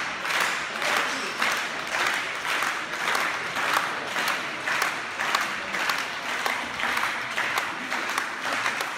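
Crowd of spectators clapping: a dense, unbroken patter of many hand claps.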